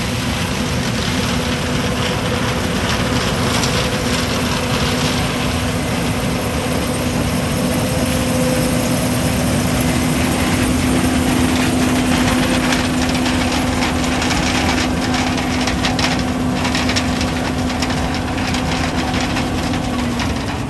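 Corn combine harvester running at work: a loud, steady machine noise with a steady low hum through most of it.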